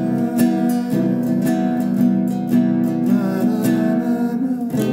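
Classical guitar strummed in a steady rhythm, about two strums a second, ringing a C major seventh chord.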